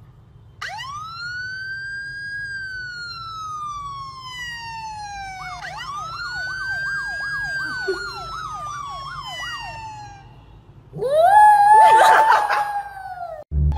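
A siren sound, plausibly played from a phone: a long rising-then-falling wail, then a second wail with a fast warble. About eleven seconds in, a small white curly-coated dog howls along loudly for a couple of seconds.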